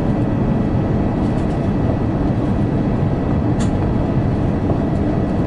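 Steady roar of engine and airflow noise inside the cabin of an Airbus A350-900 airliner in descent, with one faint click about three and a half seconds in.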